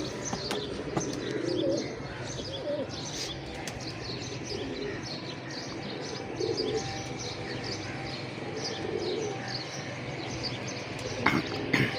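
Pigeons cooing, a few low coos spread out, with small birds chirping throughout.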